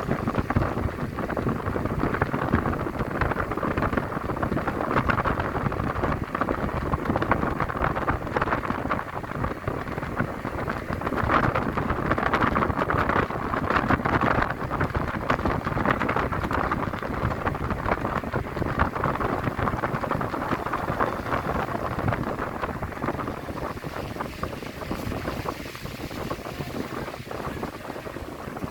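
Steady rushing wind and road noise of a car driving fast, with a dense crackle through it, easing slightly near the end.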